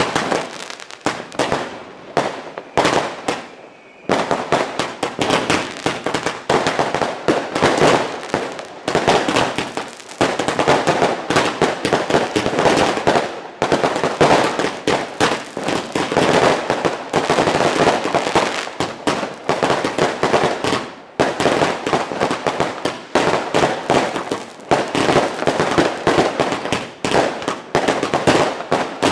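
New Year's Eve fireworks and firecrackers going off in a dense, almost unbroken string of bangs and crackles, easing briefly about three seconds in.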